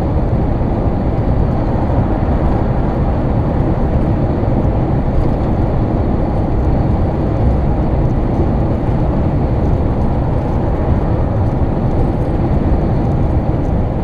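Steady, unbroken rumble of road and engine noise from a vehicle cruising at motorway speed, heaviest in the low range.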